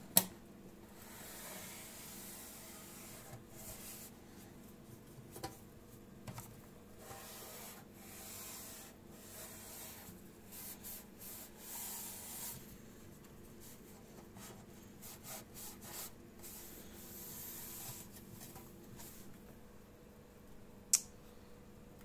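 Cloth rubbing and wiping around the rubber door seal of a Miele W 5825 washing machine, in uneven, irregular strokes. A sharp click sounds at the very start and another about a second before the end.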